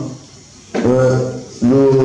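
A man's voice speaking into a handheld microphone: a pause of about three-quarters of a second, then two drawn-out phrases.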